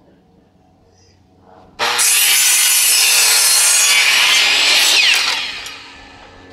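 Electric miter saw starts about two seconds in and cuts through a 2x4 brace piece, loud and steady for about three seconds, then the blade winds down with a falling whine near the end.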